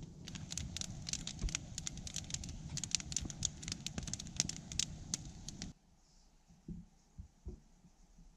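Wood fire burning, crackling with many sharp pops over a low rumble of flame. It cuts off suddenly about two thirds of the way through to a quiet background with a few soft low thumps.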